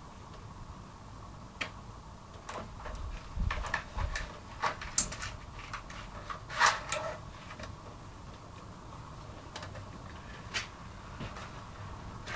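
Scattered small clicks and knocks from handling objects, irregular, with the loudest knock about six and a half seconds in.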